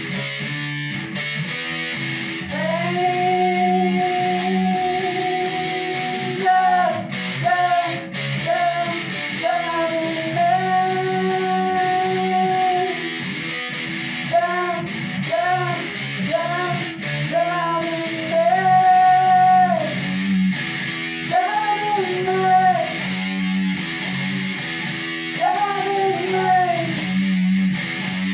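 Electric guitar music from a Squier Sonic Stratocaster through a Danelectro overdrive pedal and a Fender amp. Long held melody notes bend up into pitch over steady low chords.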